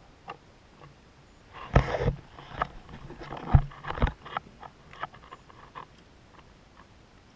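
Irregular knocks, thumps and scrapes of a triggerfish being handled with gloved hands against a plastic kayak hull, the sharpest around two, three and a half and four seconds in.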